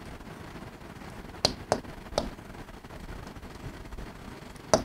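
Chalk clicking against a blackboard while words are written: three sharp taps close together about a second and a half in, and one more near the end.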